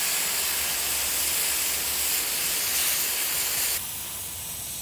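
Two cans of compressed-air duster, held upside down, hissing steadily as they spray out liquid propellant. About four seconds in the hiss drops suddenly to a quieter level and carries on.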